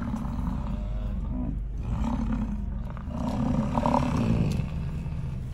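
A rutting bull bison bellowing: long, low, rumbling roars, one after another with short breaks between them.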